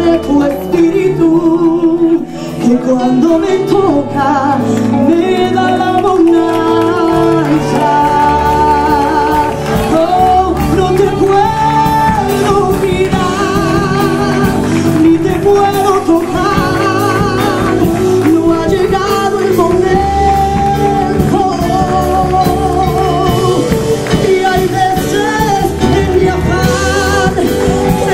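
A woman singing a Spanish-language Christian worship song live through a microphone and PA, backed by a band with electric guitar, drums and keyboard.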